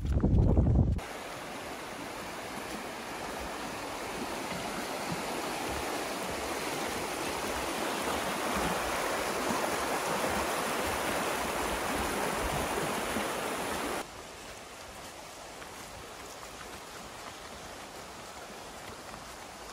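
Shallow rocky river rushing steadily, slowly growing louder, then dropping abruptly to a softer, more distant rush about fourteen seconds in. Right at the start, about a second of footsteps on a wooden plank boardwalk.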